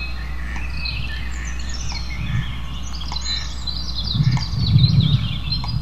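Many birds chirping and twittering in quick, overlapping high calls over a steady low background hum, with a low rumble that swells about four seconds in and fades before the end.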